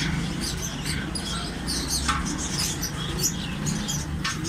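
Many short, high chirps from caged birds, scattered irregularly, over a steady low hum.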